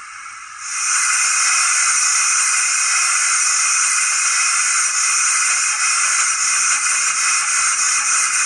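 Steam hiss played by the Zimo sound decoder in a Bachmann Prairie tank locomotive model: a loud, steady hiss that switches on about a second in and keeps going.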